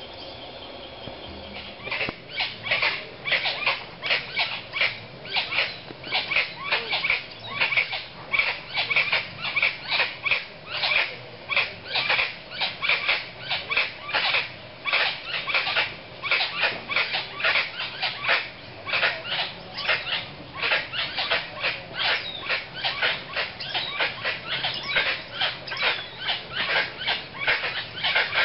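An animal calling in a long, even series of short, noisy high chirps, about two to three a second, starting about a second and a half in.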